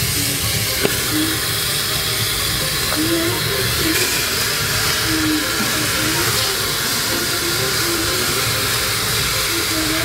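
Steady hiss of steam escaping from a khorkhog pot heated with hot stones, with faint short wavering tones underneath.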